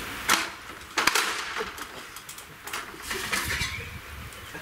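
A few sharp metallic knocks and clinks, the loudest in the first second or so and lighter ones after, from metal gear being handled as a portable band sawmill is taken down.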